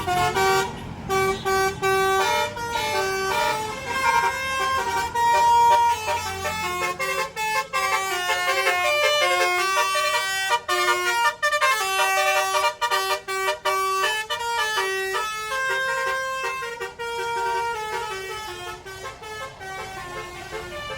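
Bus 'telolet basuri' melody horn, a bank of electric air-horn trumpets, playing a long tune of quick, clear honking notes. A bus engine runs underneath for the first few seconds, and the horn grows fainter toward the end.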